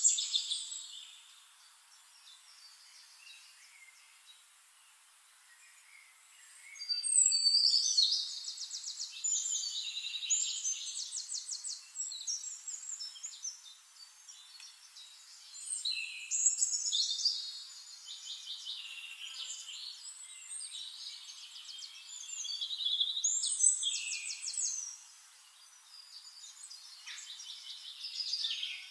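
Songbirds singing: chirps and fast trills in three bursts, the first about seven seconds in, with quieter stretches between. The sound is thin, with nothing low beneath it.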